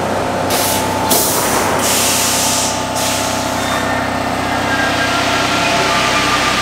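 Rubber-tyred Paris Metro train standing at the platform with a steady electrical hum, letting out a loud hiss of compressed air from about half a second to three seconds in. Near the end a motor whine begins to rise as the train starts to pull away.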